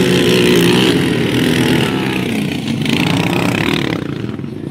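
Off-road vehicle engines running on sand dunes, the engine note shifting in pitch partway through as they rev and ease off.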